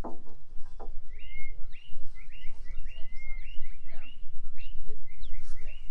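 A bird singing a quick run of short, repeated chirps over a steady low rumble.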